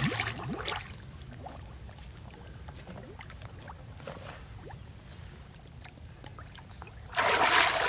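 Water splashing as a person ducks under the river surface, then a few seconds of faint bubbling and lapping, then a sudden loud burst of splashing about seven seconds in as he comes back up.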